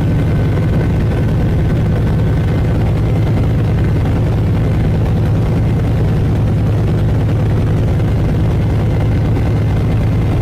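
Steady, loud drone of a Britten-Norman Islander's twin engines and propellers heard from inside the cabin in flight.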